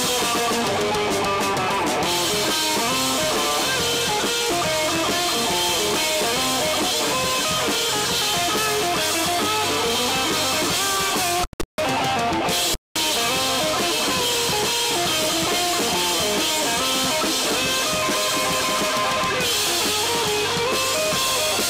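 Live rock band playing an instrumental passage between sung verses: electric guitar over a drum kit. The sound cuts out completely twice, very briefly, a little past halfway.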